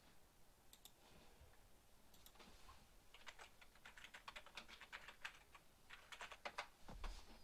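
Faint typing on a computer keyboard: a few scattered key clicks, then a quick run of keystrokes from a little under halfway in, entering a web search.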